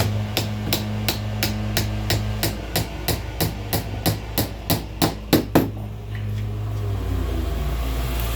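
Hammer tapping a small nail home, about three light blows a second, the last few harder, then stopping a little past halfway.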